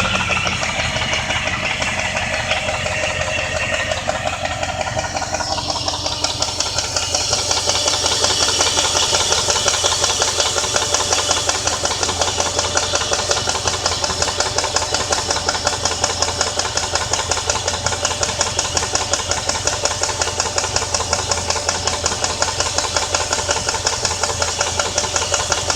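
2001 Jeep Grand Cherokee's 4.7-litre V8 running, with a rapid, regular ticking that keeps time with the engine; the engine note drops a little in the first few seconds, then holds steady. The owner cannot tell whether the tick is a rod knock, a lifter, the flywheel or the timing chain.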